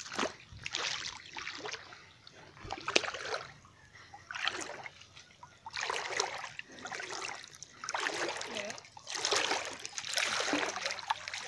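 Legs wading through shallow water, an irregular splash and slosh with each step, about one a second.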